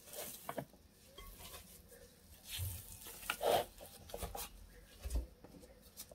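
Soft, irregular rustles and pats as handfuls of crumbly dough are dropped into a plastic food processor bowl, with a few light knocks against the bowl.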